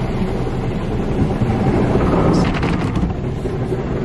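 Automatic car wash heard from inside the car: spinning brushes scrubbing over the windshield and body amid spraying water and foam, a steady loud wash noise. A burst of sharper slapping comes about two and a half seconds in.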